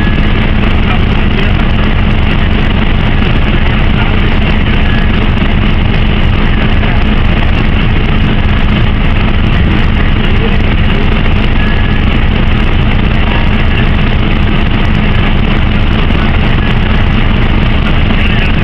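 Steady, loud drone of engines and machinery, with a low rumble and a constant hum.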